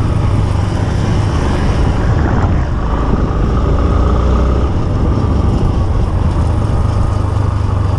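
Motorcycle engine running steadily under way, heard from the rider's seat with wind rushing past.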